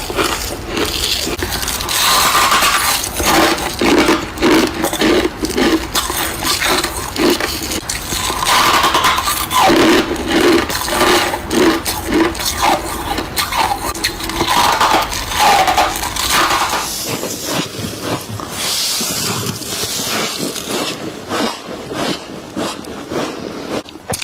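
Freezer frost being scraped and crunched while eaten, close to the microphone: a dense, unbroken run of crisp crunches and scrapes.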